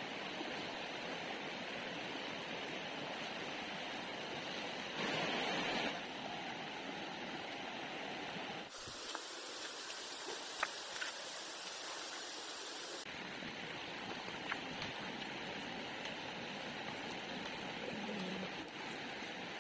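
Shallow rocky stream water running over stones, a steady rushing. There is a louder patch about five seconds in and a few small knocks partway through.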